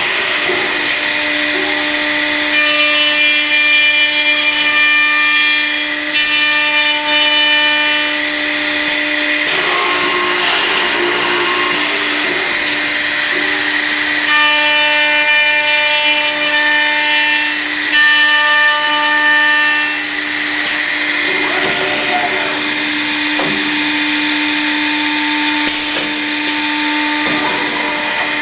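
Accu-Systems cup hinge drilling and routing machine running, its spindle motors humming steadily with cutting noise as it bores and routes wood for a cup hinge. A higher whine comes in twice, for several seconds each time.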